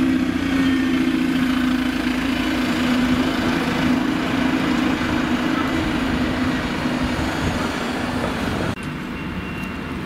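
City bus running close by, a steady engine hum with road noise. Near the end the sound drops suddenly to a quieter, lower hum.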